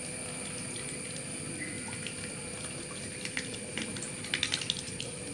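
Two-week-old ducklings splashing and dabbling their bills in a shallow puddle, with scattered small splashes and a quick run of them about four seconds in.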